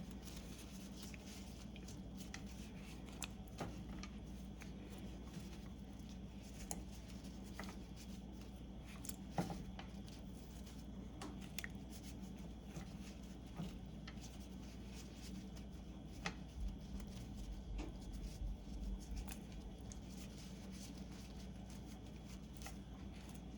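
Faint kitchen handling as lemon slices are deseeded and added to the pot: scattered light taps and clicks, irregular and a second or more apart, over a steady low hum.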